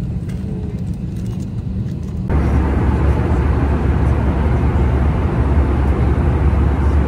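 Airliner cabin noise: a steady low hum of the engines, then about two seconds in an abrupt cut to louder, fuller steady cabin noise with a strong low rumble.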